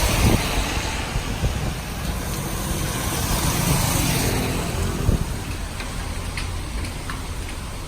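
Tropical storm wind gusting and buffeting the microphone: a heavy, uneven low rumble under a steady hiss.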